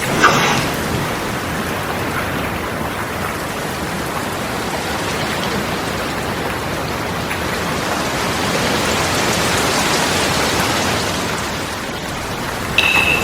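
Steady heavy-rain sound effect, an even hiss that swells a little past the middle. A sharp hit sounds right at the start, and a short ringing tone is struck near the end.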